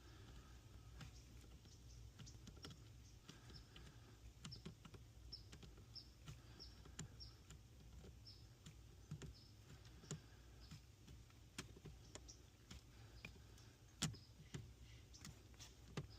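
Faint, scattered small plastic clicks and taps of fuses being pulled, handled and checked in the driver's-side fuse panel under a car's dash, with one louder click about fourteen seconds in.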